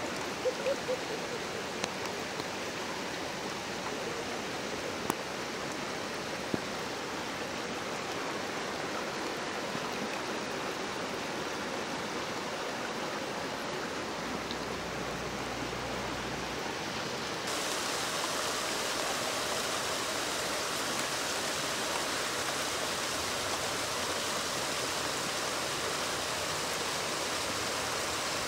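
Steady hiss of rain falling on wet pavement and mud, with a few faint knocks in the first seven seconds. The hiss steps up a little about two-thirds of the way in.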